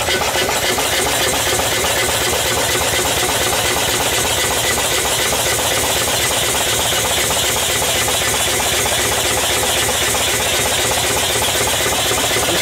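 Double-acting V-type twin-cylinder 20 HP steam engine running steadily under steam, a fast even beat with a hiss of steam over it.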